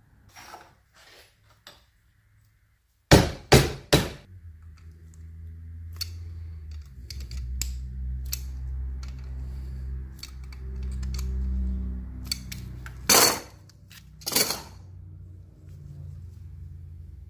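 Metal clinks and knocks of slip-joint pliers working a copper sheet petal against the workbench: three sharp clicks about three seconds in, scattered clicks after, and two louder knocks near the end, over a low steady hum.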